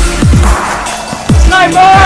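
Dubstep-style electronic music: deep bass hits that drop sharply in pitch, two close together and one more about a second later, then a wavering high synth line near the end.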